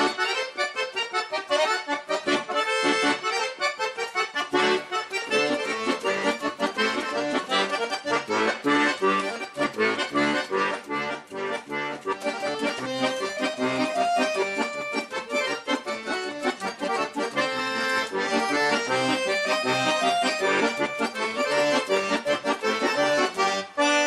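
Bayan and piano accordion duo playing a lively paso doble, with quick runs of notes over a steady pulsing bass.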